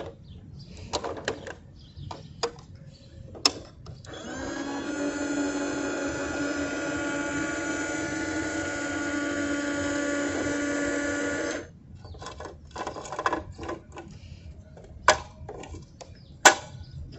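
Small electric motor in a toy garbage truck whining steadily for about seven seconds, rising briefly in pitch as it starts and cutting off suddenly. Sharp plastic clicks and knocks come before and after it.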